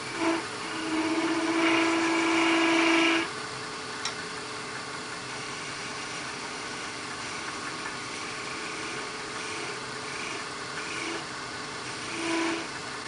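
Wood lathe running steadily at slow speed while a box scraper takes light cuts across the face of an ebony knob and its bone insert. The cut sings as a louder pitched squeal for about two seconds near the start, with shorter squeals just after the start and again near the end.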